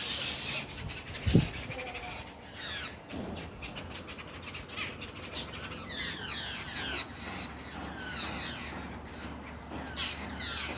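Birds calling in repeated bursts of quick, downward-sliding chirps, with a brief low thump about a second in.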